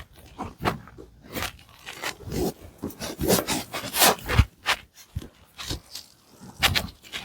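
Irregular run of sharp cracks and pops, with rubbing and scraping between them, from joints being manipulated in a hands-on chiropractic treatment. The clicks come thickest about three to four and a half seconds in.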